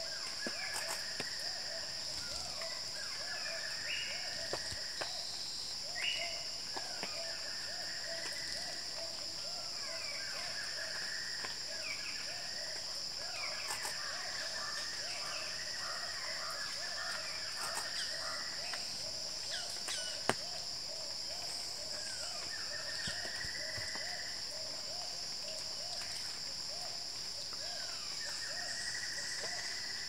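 Forest insects droning steadily at a high pitch, with birds calling over them: a low note repeated about twice a second and raspy calls about a second long every few seconds. A single sharp click about twenty seconds in.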